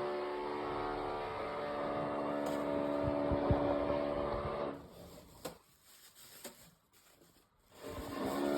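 Electric power tool from building renovation, its motor running with a steady hum. It stops about five seconds in, leaving a quieter stretch with a few faint clicks, then starts up again near the end.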